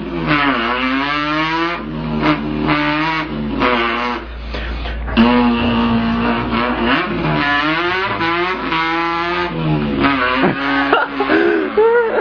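A man imitating a car engine with his voice, an import car revving: the pitch climbs and drops back several times like an engine going up through the gears, with a few short breaks.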